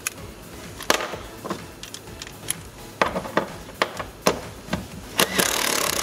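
A few scattered clicks and knocks, then, a little after five seconds in, a small cordless impact driver starts hammering continuously on a tight seat-mounting bolt to loosen it.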